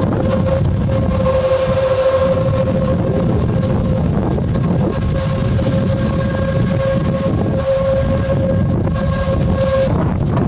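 Train running on the tight curve of the spiral viaduct: a low rumble with a steady high squeal that wavers and drops out briefly now and then, typical of steel wheel flanges squealing on a sharp curve.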